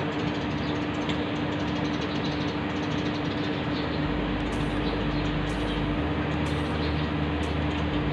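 Electric water pump on a pressure tank running: a steady motor hum over an even rushing noise.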